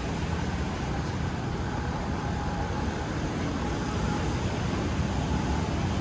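Steady rumble of nearby road traffic, with no clear single event.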